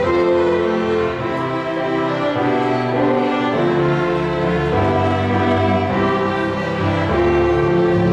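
A small student ensemble of violins with a digital piano playing, holding long notes over a bass line that moves every second or so.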